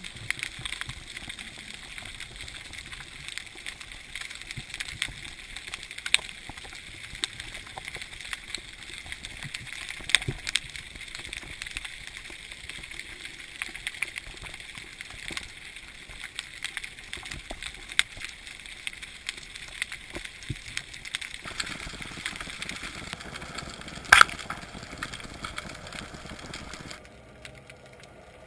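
Underwater ambience picked up through a camera housing: a steady hiss with frequent scattered crackling clicks, one sharp, much louder click about 24 seconds in, and the sound dropping quieter shortly before the end.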